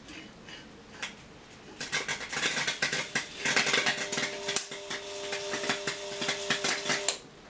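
High-voltage arcing from a microwave oven transformer driven through a plasma TV panel. Sharp crackling starts about two seconds in and builds into a dense crackle, with a steady buzzing hum joining halfway. All of it cuts off suddenly near the end as the circuit breaker trips.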